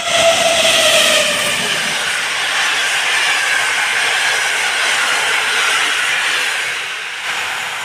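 Passenger train running past the platform at speed: a steady rushing noise of the coaches going by, with a few tones falling in pitch in the first two seconds as the front passes, easing off slightly near the end.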